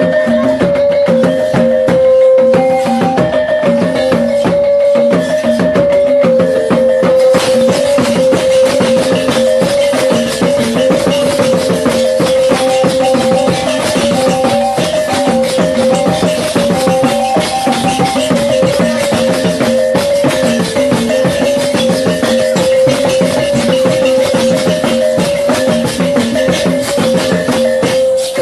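Traditional Dayak Ma'anyan ritual dance music: a pitched percussion instrument repeats a short pattern of a few notes over drums and dense rattling. The rattling thickens about seven seconds in.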